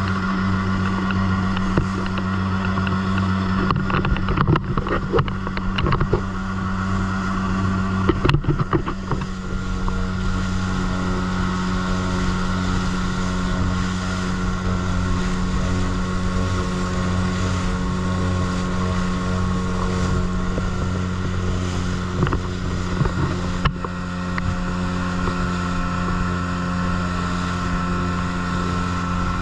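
Small motorboat's engine running steadily at cruising speed, a constant low drone, with water rushing along the hull. A cluster of sharp thumps and splashes comes about four to nine seconds in.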